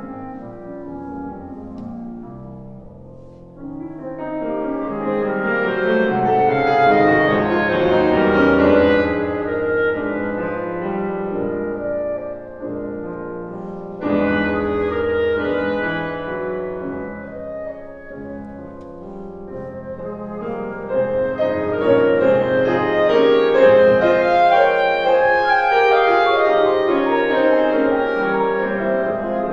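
Clarinet and Steinway grand piano playing classical chamber music together. The music is soft near the start, swells to a loud passage, comes in suddenly louder about halfway through, then builds again toward the end.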